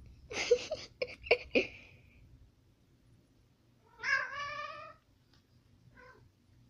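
Two domestic cats fighting: a quick flurry of short, harsh cries about half a second in, then one drawn-out yowl about four seconds in, and a brief cry near the end.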